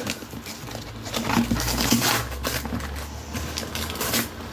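Parcel packaging crinkling and tearing as it is cut open with a key, in irregular scratchy rustles.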